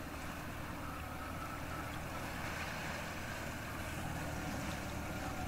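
UAZ-452 'Bukhanka' van's engine running steadily at low revs as the van wades through deep floodwater, with water washing around it; it grows a little louder as the van comes closer.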